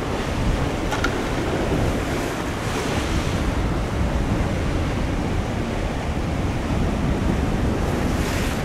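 Rough surf washing and breaking against a rocky shore, with wind buffeting the microphone. A louder, hissier wash comes about three seconds in and again near the end.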